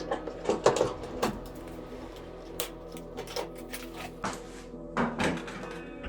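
Scattered clicks and light knocks of hands handling a dryer's front panel and its wire connectors while they are plugged in.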